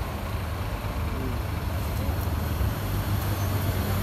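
Intercity bus diesel engine running steadily at low revs, a deep even drone.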